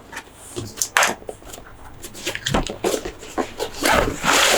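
Toy packaging being handled: a run of sharp clicks and crinkly rustles, with a longer, louder rustle near the end.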